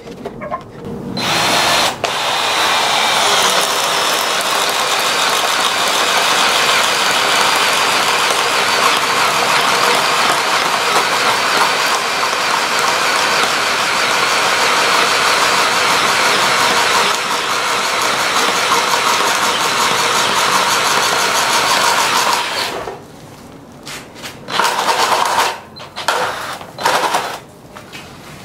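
Stanley 20V cordless drill boring into a wooden beam with a 1.5-inch spade bit, its motor running steadily under load for about twenty seconds. It then stops, and a few short bursts follow near the end.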